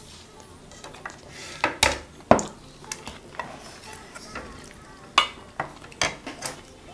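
A serving spoon scraping and knocking inside a metal pot as food is scooped out, with several sharp clinks, the loudest about two seconds in and a few more near the end.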